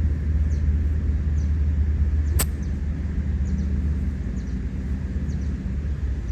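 Steady low rumble of outdoor background noise, with faint high bird-like chirps repeating now and then and a single sharp click about two and a half seconds in.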